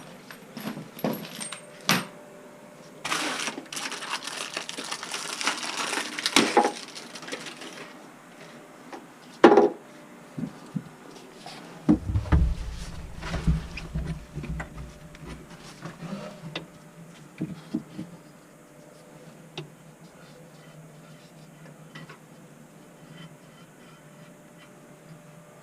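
Clicks, knocks and light clatter of hand tools and fittings being handled during plumbing work. There is a few seconds of rustling noise a few seconds in, and a low rumble about halfway through.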